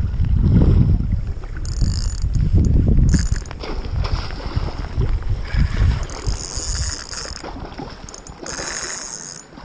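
Wind buffeting the microphone in gusts, with spells of high mechanical whirring from the fishing reel as a hooked Chinook salmon is played on the rod.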